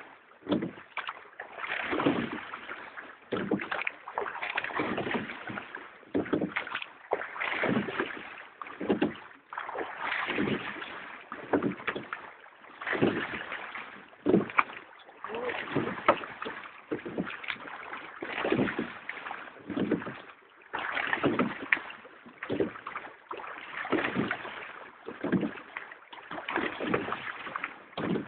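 A crew rowing a multi-oared boat in a steady stroke, about every two and a half to three seconds: each stroke brings a rush of water and sharp knocks of the oars in their rowlocks.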